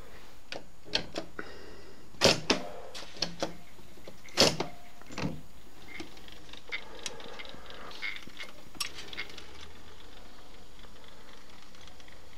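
Jupiter 100 jukebox clicking and clunking as its selection buttons are pressed and its record mechanism moves, over a faint steady hum. Two louder knocks come in the first half, then lighter clicks until about two-thirds of the way through.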